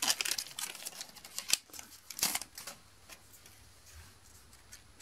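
Foil booster pack wrapper crinkling and tearing as it is peeled open by hand, a run of quick crackles and rustles, with the cards being handled; it dies down after about three seconds.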